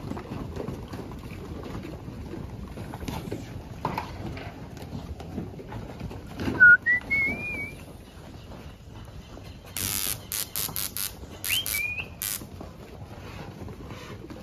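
Short wavering whistles rising in pitch, with a sharp knock at the first one, then a quick run of sharp high clicks and a second brief whistle about ten seconds in, over steady outdoor background noise.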